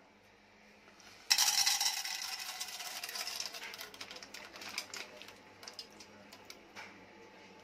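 Dried popcorn kernels poured from a packet into an empty metal pressure cooker: a sudden dense rattle of kernels hitting the pot's base about a second in, thinning out to scattered clicks.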